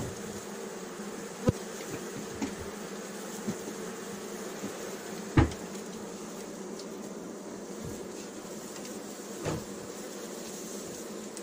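A strong honeybee colony buzzing steadily over the open hive's frame tops. A few sharp knocks of handling the wooden hive come through, the loudest about halfway through.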